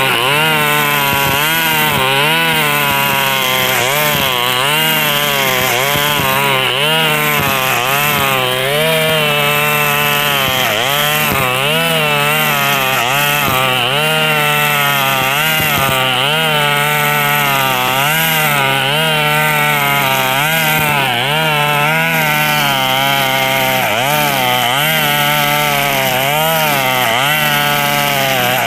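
KNC 4400 brush cutter's two-stroke engine running hard with its nylon line cutting grass; the engine pitch dips and recovers about once a second as the line bites into the grass. The exhaust is loud and raw because the old muffler is rusted through with small holes.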